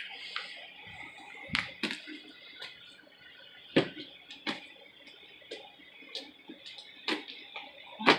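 Sticky homemade slime being worked by hand, giving irregular sharp clicks and pops, loudest about four seconds in and near the end; the slime is still sticky and not yet fully activated.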